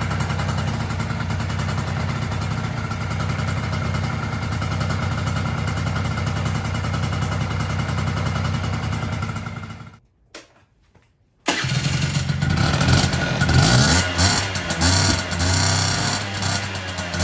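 Honda G' scooter's small upright-cylinder two-stroke engine running at a steady idle for about ten seconds. After a short break it runs again with the throttle blipped, revs rising and falling.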